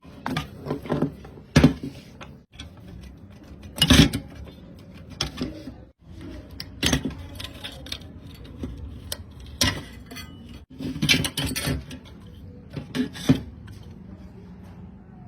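Metal tools and parts clinking and clattering in irregular knocks, the loudest about a second and a half and four seconds in.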